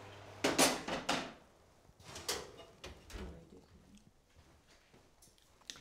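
Oven shelf pushed in and oven door shut: a loud metallic clatter about half a second in, then softer knocks and a single click near the end.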